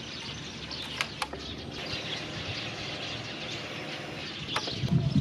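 Birds chirping in the background over a low steady hum, with a few sharp clicks, one about a second in and another near the end.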